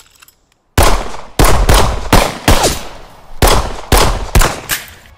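Gunfire in a firefight: after a short hush, rifle shots ring out in quick, irregular succession, each followed by a ringing echo.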